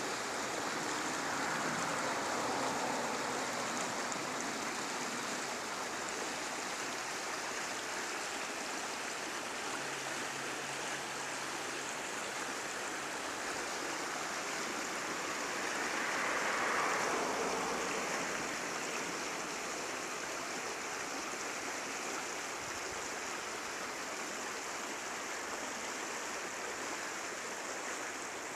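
Small, shallow, fast-flowing river rushing over stones: a steady wash of running water that swells briefly a little past halfway.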